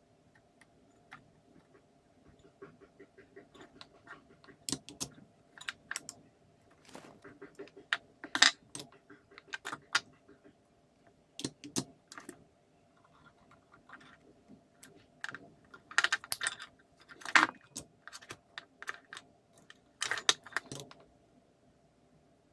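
Irregular clicks, taps and rattles of small parts being handled during work on a Makita ML807 lantern work light, with several louder clatters, over a faint steady hum.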